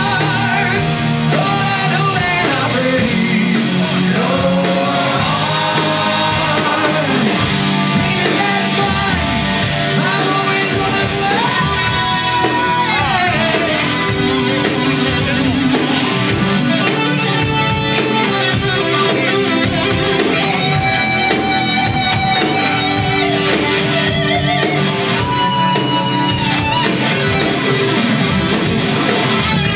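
Live rock band playing: electric guitar, bass guitar and drum kit, with singing.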